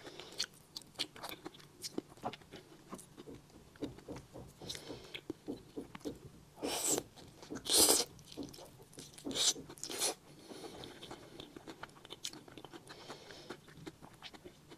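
Close-miked chewing and biting of durian flesh, with many small wet mouth clicks. There are several louder noisy bursts in the middle.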